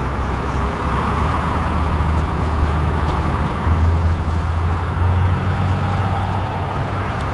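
AI-generated sound effect from Meta Audiobox for the prompt "a car is running on a busy road": a car engine's steady low hum over continuous traffic noise.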